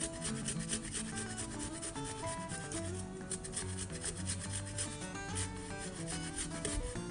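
Fresh ginger root being grated on a handheld metal grater: quick repeated rasping strokes. Soft background music plays underneath.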